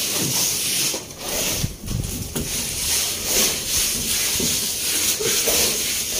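Steady hiss with scattered low knocks and scuffs from someone climbing a ladder while holding the phone.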